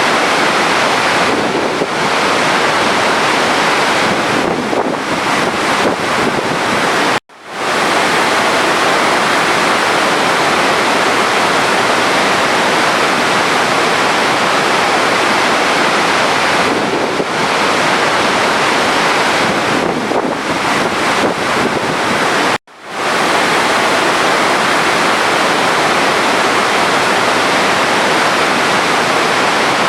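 Running water rushing steadily, a dense even hiss like a stream or small waterfall. It cuts out abruptly twice and swells back within a moment, about seven seconds in and again about twenty-three seconds in.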